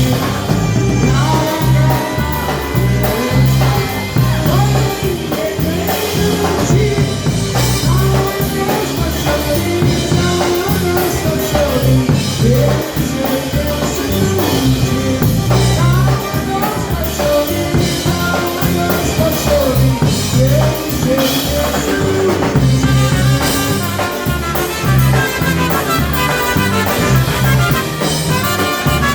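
Live polka band playing a polka, with a steady bass line and drum kit beat.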